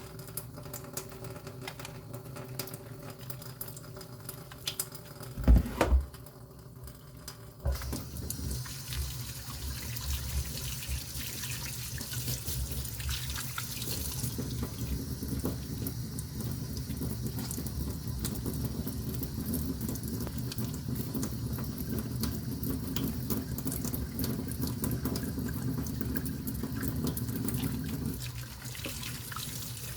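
Water running steadily, starting after a few seconds of quiet handling; just before it starts there are two loud knocks.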